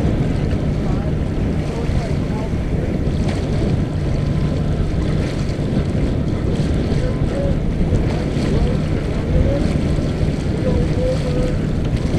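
Wind buffeting the microphone over the rush of water along the hull of a Mumm 36 racing sailboat under way, with a steady low hum underneath.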